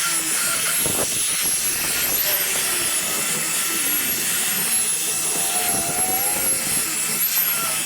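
A power tool's motor running steadily, with a high whine that wavers slightly in pitch as it works.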